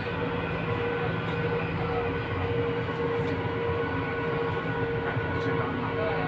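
Tram running along its track, heard from inside the car: a steady rolling and running noise with a constant whine held through it.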